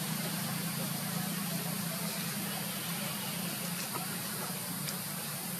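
Steady background noise: a low hum under a constant hiss, with a few faint clicks about two and four seconds in.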